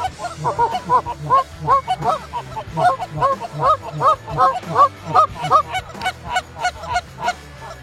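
Canada geese honking: a quick run of short honks, about two or three a second, fading over the last couple of seconds.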